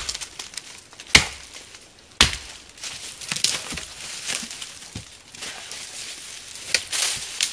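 Axe chopping through the base of a small spruce tree: three sharp blows about a second apart. These are followed by lighter snapping and rustling of branches as the cut tree is pushed over.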